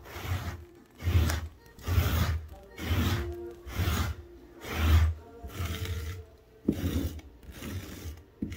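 A hand tool being scraped back and forth over stair-tread carpet, in rasping strokes about once a second, to pull up embedded cat hair.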